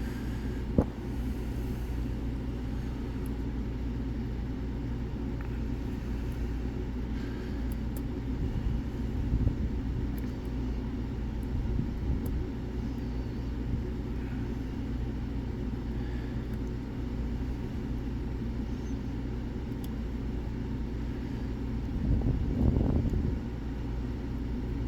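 A steady low rumble, swelling briefly near the end, with a few faint light clicks of a pick working the pins of an Era Fortress lock.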